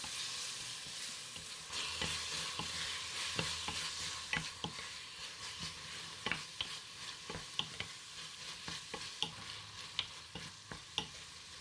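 Diced chicken gizzards, livers and hearts sautéing in oil with garlic and shallot in a small saucepan: a steady sizzle, with irregular sharp clicks of a utensil against the pan as it is stirred.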